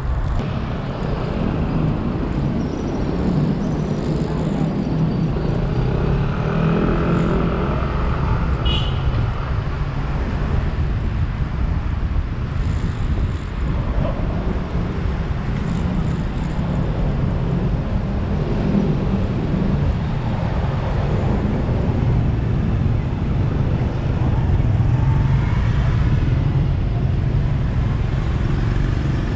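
Car driving through city traffic: a steady rumble of engine and road noise, with other vehicles passing.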